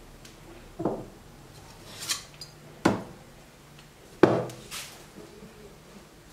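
Stainless steel cocktail shaker parts and utensils being set down on a table: five knocks and clinks, the loudest two about three and four seconds in, each with a short metallic ring.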